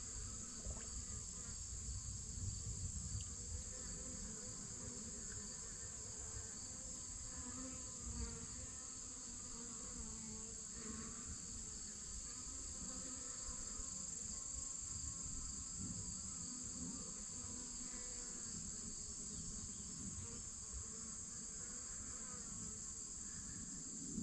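Insect chorus: a steady, high-pitched trill that holds unbroken throughout, with faint scattered chirps beneath it.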